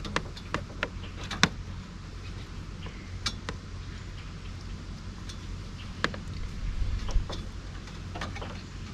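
Light, scattered clicks and rattles of wire being wound and twisted together by hand, as a lead wire is tied onto a wiring harness.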